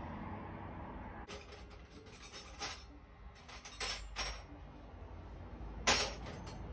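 Hand tools clinking and knocking against metal: a handful of short, sharp clinks at irregular intervals, the loudest one near the end.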